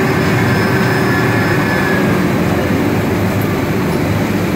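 Flames inside an oak whisky cask being re-charred over a burner: a loud, steady rushing noise.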